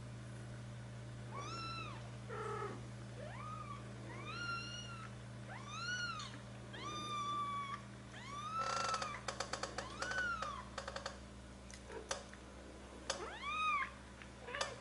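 Four-week-old Birman kittens mewing, about nine short high-pitched mews, each rising and falling in pitch. A quick run of clicks comes about nine seconds in.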